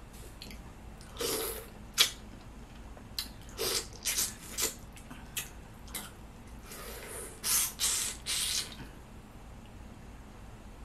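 Wet mouth sounds of someone eating shell-on boiled shrimp dripping with sauce: a string of short slurps and sucks, with a cluster of them about seven to nine seconds in.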